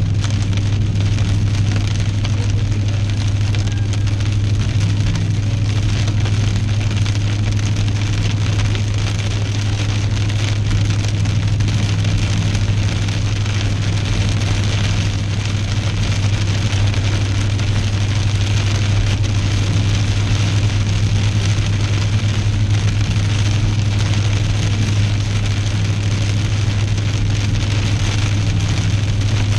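Rain falling on a moving car, heard inside the cabin, over a steady low hum of engine and road noise.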